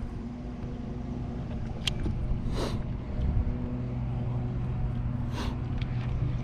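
A boat motor running with a steady hum. Two brief rushing noises cut across it, one partway through and one near the end.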